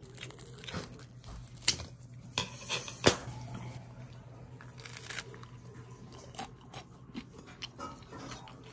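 Irregular sharp clicks and crunching, crinkling handling noises, two louder clicks about a second and a half apart near the start, over a steady low hum.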